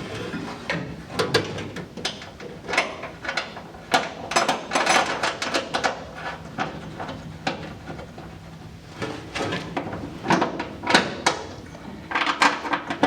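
Irregular metallic clicks and clinks of hardware and hand tools as a temporary bolt is fitted into the flange of a steering shaft's firewall bearing, with a quieter stretch about halfway through.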